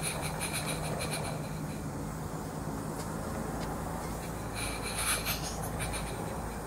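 Live-steam garden-scale model locomotive Yeo exhausting in two spells of rapid chuffs, one at the start and one about four and a half seconds in, over a steady low hum.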